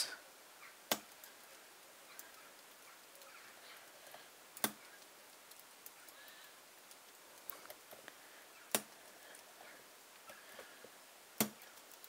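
Small brass combination padlock being decoded by hand: four sharp metallic clicks a few seconds apart, with fainter ticks between them, as the dials are turned and the shackle is tensioned and released to feel for the binding dial.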